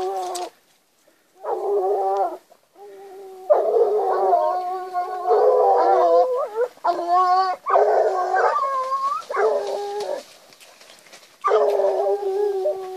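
Petit bleu de Gascogne hounds baying in long howling calls. Several voices overlap, and the calls come in bursts separated by short pauses. This is the pack giving tongue during the hunt.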